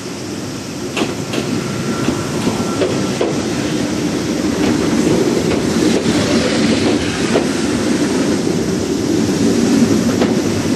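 Kintetsu 16000 series limited express electric train running slowly into the station past close by, its wheels clicking over rail joints. The running noise grows louder about midway as the cars pass.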